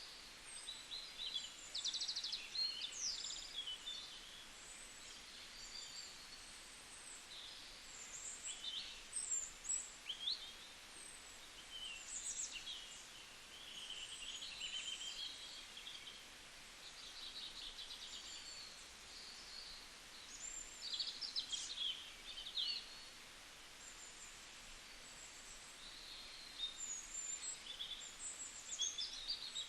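Songbirds chirping and trilling, short high calls coming in clusters over a steady background hiss.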